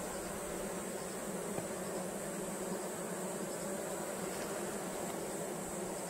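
Western honeybees of a newly hived swarm buzzing over an open hive in a steady hum; the colony has settled in.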